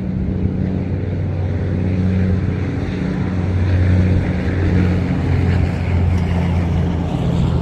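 An engine running steadily with a low, even hum that wavers slightly in pitch.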